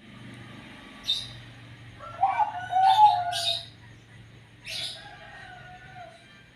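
Zebra dove (perkutut) cooing: two wavering phrases, the first about two seconds in and the second near the end, mixed with short high chirps, against a faint steady low hum. Its owner calls the call strange.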